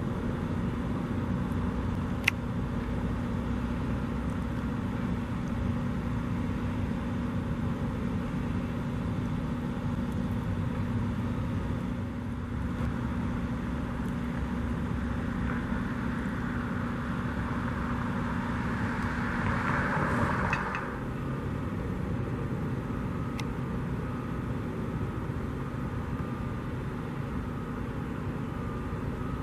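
Steady engine and traffic noise with a constant low hum. A rising rush builds over several seconds and cuts off suddenly, together with the hum, about 21 seconds in. There is a single sharp click a couple of seconds in.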